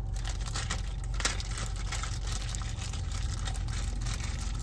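Thin plastic toy bag crinkling and crackling as hands tear it open and pull out a small toy car. A steady low hum runs beneath.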